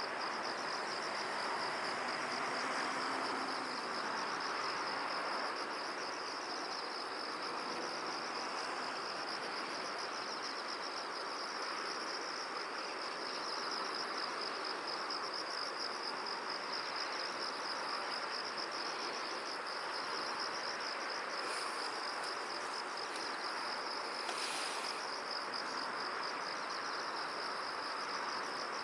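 Crickets chirping in a steady, fast, even pulse over an even rush of flowing water. Two brief higher sounds come about three quarters of the way through.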